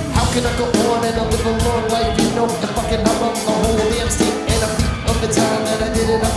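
Live band playing an electronica-rock instrumental passage, driven by a steady drum beat.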